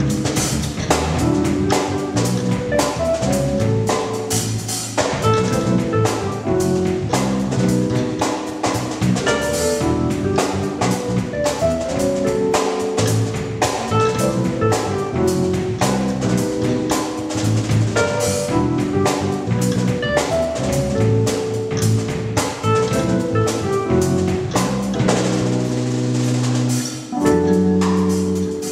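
Drum kit playing a gospel groove with bass and keyboard, with steady drum hits under held bass and chord notes.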